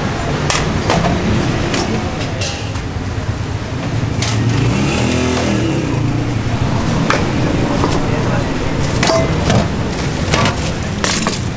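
Busy street ambience: steady traffic rumble and background voices, with an engine rising in pitch as a vehicle passes about five seconds in. Scattered sharp clicks and clinks are heard throughout.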